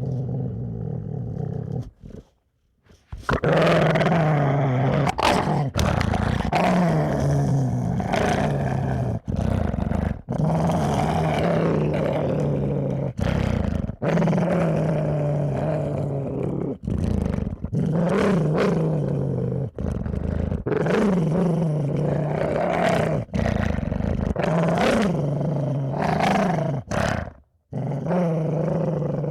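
Dogs growling in long, rough, low growls broken by short pauses. It is quieter for the first couple of seconds, then loud and sustained after a brief pause about three seconds in.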